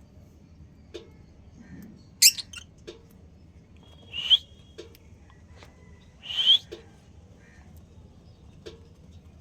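Pet lovebirds calling: a sharp high chirp about two seconds in, then two loud rising calls about two seconds apart. Under them is a faint, regular tick about every two seconds.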